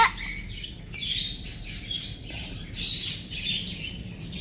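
Small pet cage birds chirping and warbling in overlapping clusters, with a quick rising call right at the start.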